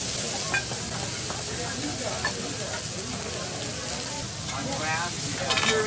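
Raw steaks sizzling on a hot steel flat-top griddle, a steady frying hiss, with a few light clinks of a metal fork and spatula against the griddle.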